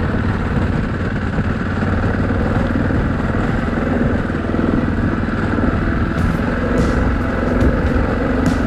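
Yamaha Ténéré XT660Z's single-cylinder four-stroke engine running steadily as the motorcycle is ridden off-road, with a few short sharp clicks in the last few seconds.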